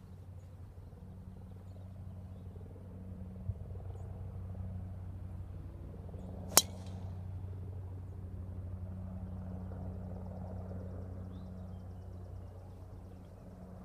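A golf club strikes the ball once with a sharp crack about six and a half seconds in, over a steady low hum.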